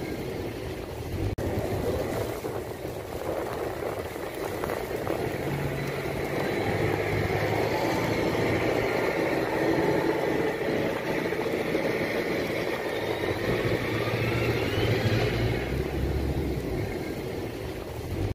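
Steady engine rumble with a hissing wash over it, and a faint whine that rises and falls in pitch about halfway through.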